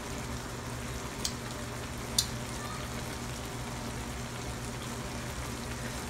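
Kangkong (water spinach) simmering in its juices in an aluminium wok: a steady sizzling, bubbling hiss over a low hum, with two sharp little pops, about a second in and just after two seconds.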